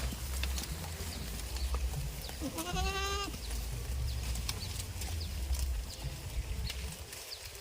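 A goat bleats once, a quavering call of under a second about three seconds in, over a steady low rumble and scattered clicks.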